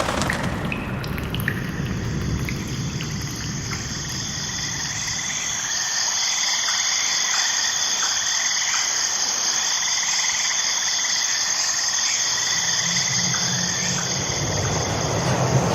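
Night chorus of frogs and insects: several steady, high trills layered over one another, with a lower pulsing call. A low rumble fades out at the start and rises again near the end.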